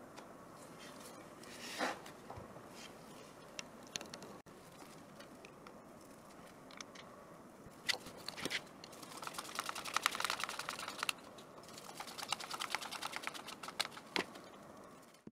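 Small clicks and knocks of 3D-printed compressor parts being handled and screwed together. Twice, near the middle and toward the end, a screwdriver clicks rapidly and evenly for a second or two at a time.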